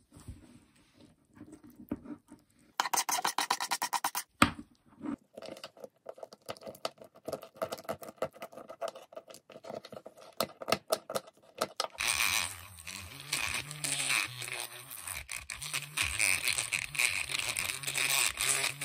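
Sticky, crackly squelching and scraping as gloved fingers and a plastic tool pull apart and scrape off blue slimy gel to free a Treasure X toy figure, a rapid run of small pops and crackles. About two-thirds of the way in, a steadier sound with a low hum joins.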